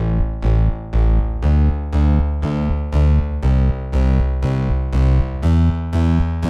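Background music: evenly spaced keyboard notes, about two a second, each fading out before the next.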